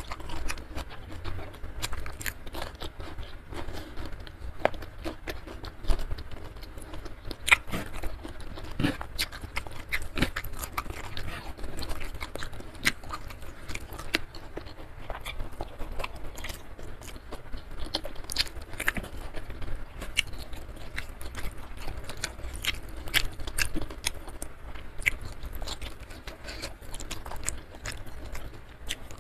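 Close-miked chewing and crunching of mouthfuls of rice and vegetables eaten by hand, with a steady run of small wet mouth clicks and crisp bites.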